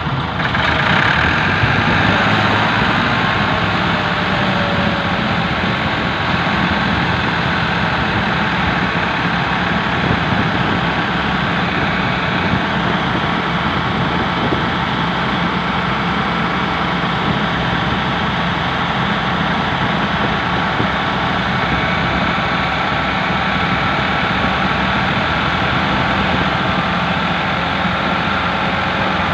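Ford farm tractors' three-cylinder diesel engines running steadily under load as they pull a heavily loaded trolley through soft ploughed soil.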